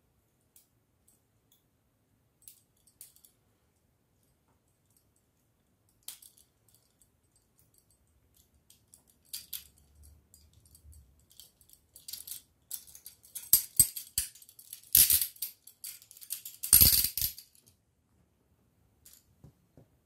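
Chubb Detainer IK70 steel handcuff clicking and rattling as a wire bypass tool works its double-locked mechanism. Scattered small clicks at first, then a run of louder metal clicks and jangling in the second half, loudest about fifteen and seventeen seconds in, as the cuff is released.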